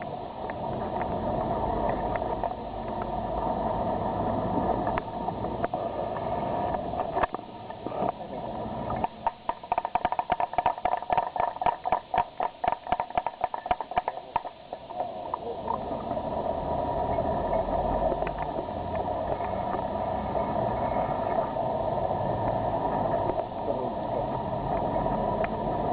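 Crowd noise with voices, and a run of rhythmic hand-clapping about nine seconds in that goes on for some six seconds before fading back into the crowd noise.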